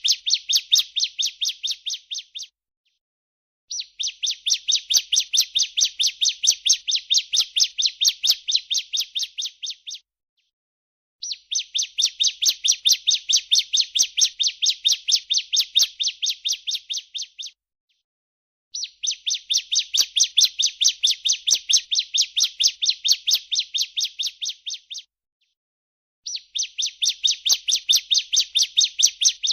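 Female ciblek (bar-winged prinia) giving its 'breeen' call: long, rapid trills of high buzzy notes in bouts of about six seconds, each fading at its end, separated by short silent gaps.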